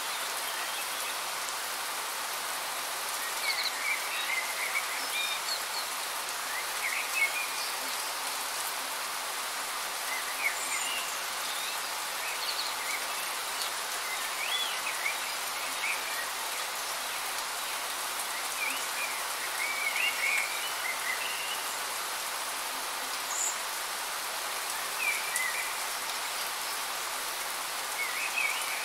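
Steady rain falling as an even hiss, with short bird chirps scattered through it now and then.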